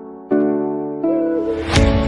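Background music: a keyboard chord struck about a third of a second in and fading, then near the middle a rising swell builds and a bass line comes in.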